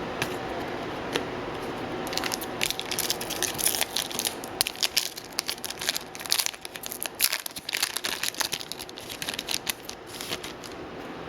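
Crinkling and rustling of a foil trading-card pack wrapper being handled and torn, in quick crackly bursts that start about two seconds in and thin out near the end.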